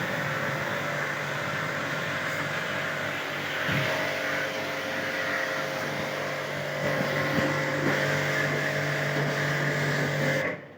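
Electric pressure-washer pump running steadily while spraying water to wash an air conditioner, with a steady motor hum and hiss, then cut off suddenly near the end.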